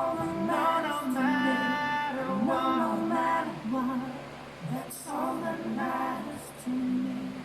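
Music with a female voice singing, held notes and gliding pitches over an accompaniment.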